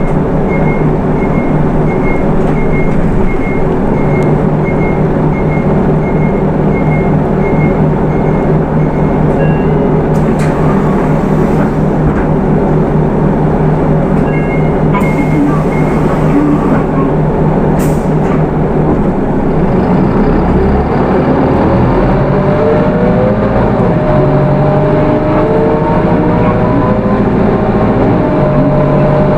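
Hino Rainbow II bus's Isuzu 4HK1 four-cylinder diesel idling steadily, with a repeated electronic beep about twice a second for the first nine seconds and again briefly in the middle, and a few sharp knocks. About twenty seconds in the bus pulls away, the engine rising in pitch in steps as the automatic gearbox shifts up.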